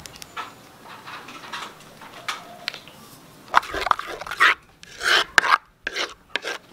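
A metal spoon stirring and scraping thick flour batter in a terracotta bowl. About halfway through, several short, loud animal calls cut in and are the loudest sounds.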